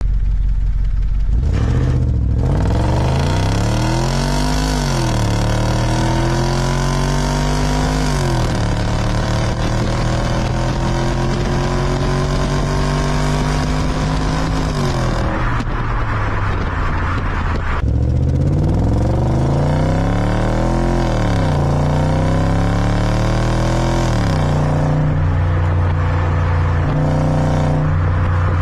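Audi S4 B7's 4.2-litre V8 on its stock exhaust, revving and pulling. The pitch rises and falls several times, including two long steady climbs, each ending in a sudden drop, then settles to a steady idle near the end with one short blip.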